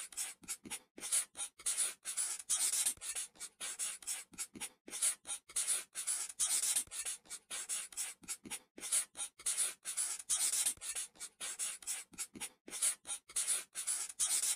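Felt-tip whiteboard marker rubbing across paper in many short strokes with brief gaps between them, tracing over the lines of a drawing.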